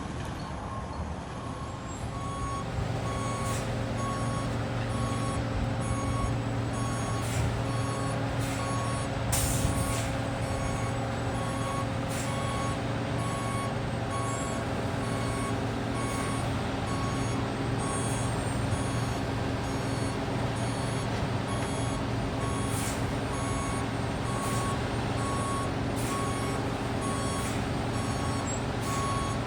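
Concrete mixer truck reversing: its backup alarm beeps steadily from about two seconds in over the diesel engine running, with a short hiss of air about ten seconds in.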